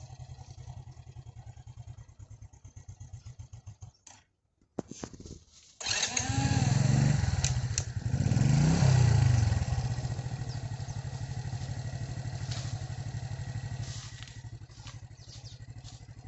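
Small engine running with an even, fast putter, cutting out for a couple of seconds, then coming back and revving up and down twice before settling into a steady run.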